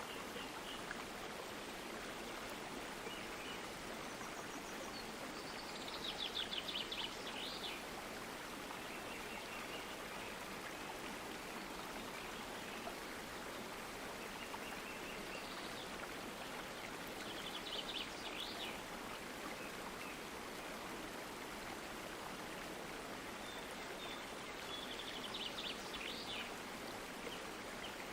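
Steady rushing babble of a flowing stream, with a small bird singing short trilled phrases over it three times: about a quarter of the way in, past the middle, and near the end.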